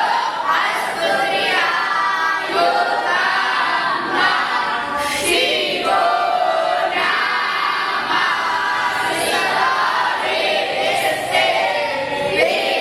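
A group of boys' voices chanting together in unison: a continuous, sung-sounding chant of many overlapping young voices.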